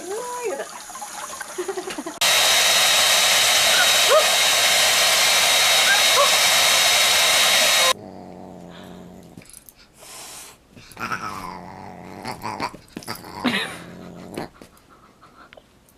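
Loud steady blowing noise from a small appliance motor starting about two seconds in and cutting off suddenly near the middle, with short animal cries over it and more pet calls after it stops.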